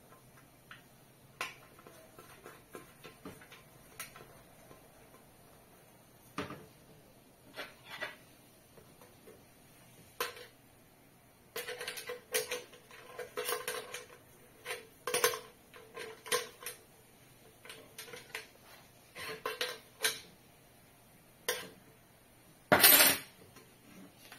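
Parts of a ceiling light being handled: its wires, base plate and square frames clicking, knocking and clattering against each other, with a short ringing tone from the plate during the busiest stretch in the middle. Near the end comes one louder scraping rustle lasting about half a second.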